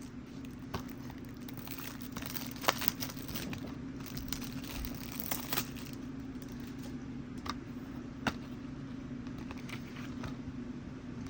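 Plastic shrink-wrap being torn and crinkled off a Blu-ray case, with scattered crackles and sharp clicks, the sharpest about three and eight seconds in.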